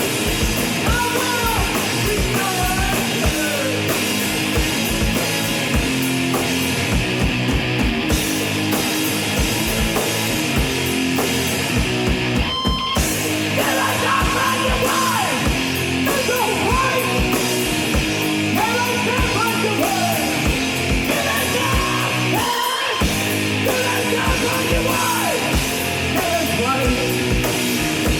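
Live grunge/noise-rock band playing: distorted electric guitar, a Fender Telecaster, over a pounding drum kit, with shouted, yelled vocals.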